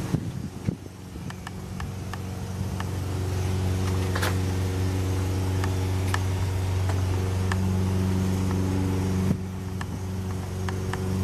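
A steady low mechanical hum that is weaker for the first couple of seconds, then holds steady, with a few light clicks scattered through it.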